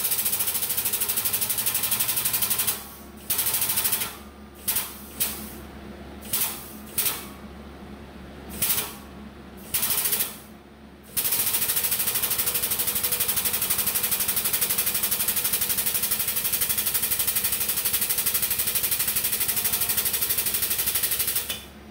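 Air-over-hydraulic pump of a 20-ton shop press running with a rapid pulsing chatter and air hiss as it drives the ram down through a finger brake to bend steel plate. It runs for a few seconds, then in a string of short on-off bursts, then steadily for about ten seconds, stopping just before the end.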